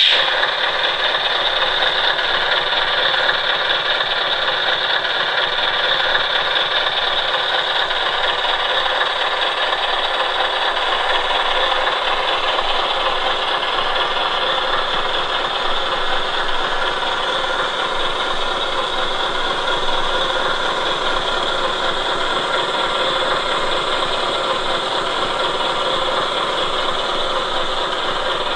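An RC hook-lift truck runs with a steady, even mechanical sound that does not change in level or pitch.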